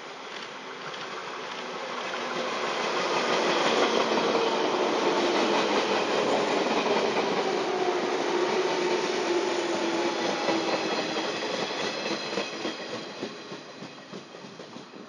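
A JR 115 series electric multiple unit, with four motor cars in a row, approaches and passes close by. Its running noise builds over the first few seconds. A motor whine falls in pitch as the train goes past, with wheels clattering over rail joints, and the noise fades as it pulls away.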